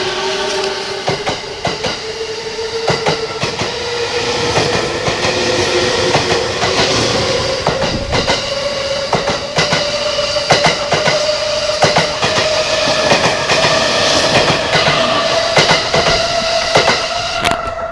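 Yokosuka Line E217-series electric train passing close by and accelerating. Its inverter-driven traction motors give a whine that climbs steadily in pitch, over a dense clatter of wheels on rail joints. The sound drops away near the end.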